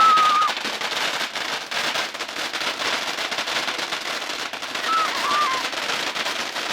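Fireworks crackling: a dense, fast crackle like heavy rain, loudest at the start, where a short high whistling tone sounds.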